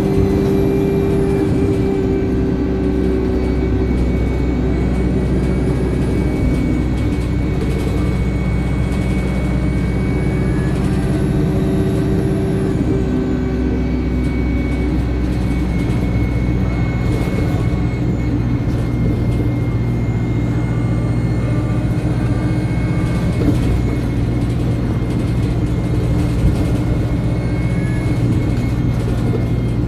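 Alexander Dennis Enviro200 single-deck bus heard from on board: the diesel engine running under way, with a high turbo whine that rises and falls several times with the revs.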